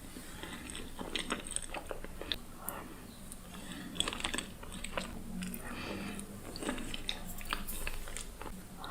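Close-miked eating of profiteroles: bites into the pastry and chewing, a steady run of short crunches, clicks and wet mouth sounds.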